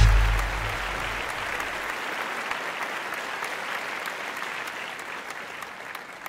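An audience applauding, fading out gradually near the end, while the last low note of the preceding music dies away in the first two seconds.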